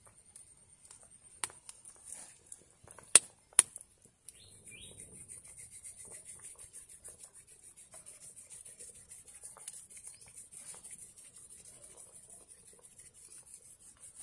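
A big steel pan of soup bubbling over a crackling wood fire while a ladle stirs it. Two sharp knocks of the ladle against the pan come about three seconds in, then a fast, steady crackling runs under a constant high-pitched hiss.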